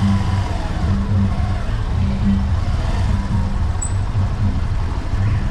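Motorcycle engine running steadily while ridden, heard from the rider's seat.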